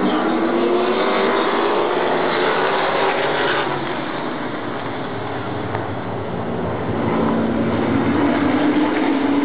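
Engines of a pack of oval-track race cars running at speed, pitch gliding up and down as cars pass close by; the sound eases off for a few seconds in the middle, then builds again as the field comes round.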